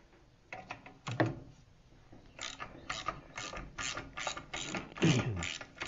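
Socket ratchet wrench being worked back and forth to back out a bolt: a couple of knocks at first, then from about two seconds in a steady run of ratchet clicks, about three a second.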